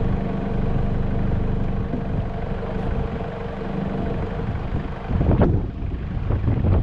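Car engine idling steadily with a low hum. From about five seconds in, gusts of wind hit the microphone.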